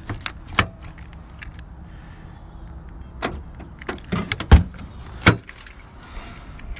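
Rear liftgate of a car being worked open: a few latch clicks and knocks, the loudest a heavy thump about four and a half seconds in, over a low steady rumble.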